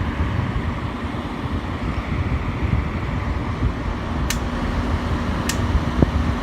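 Emerson Quiet Kool 11,500 BTU through-the-wall air conditioner running on low cool, a steady rush of fan and unit noise. Two light clicks come about four and five and a half seconds in.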